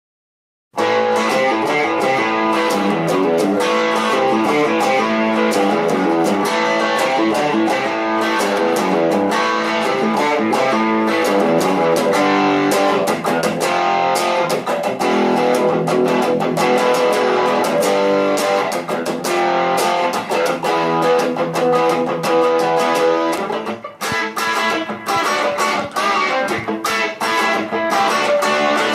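Electric guitar, a Fender Stratocaster through a small Vox AC4 valve amp, playing a rock riff. It starts sharply just under a second in and breaks off briefly near 24 seconds before going on.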